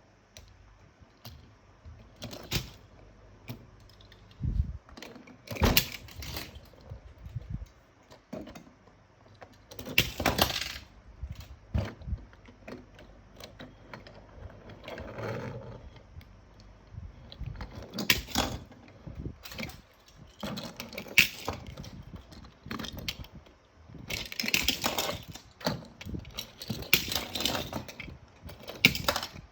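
Small diecast metal toy cars clinking and clattering against each other and a hard surface as they are handled, in irregular groups of sharp clicks with quieter gaps between.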